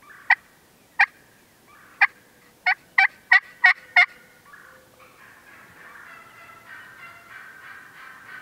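Wild turkey hen yelping: about eight loud, sharp yelps in the first four seconds, coming faster toward the end, then softer, quicker calling.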